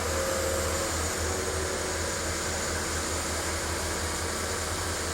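Backhoe diesel engines running steadily during digging: a low, even drone with a steady hiss over it.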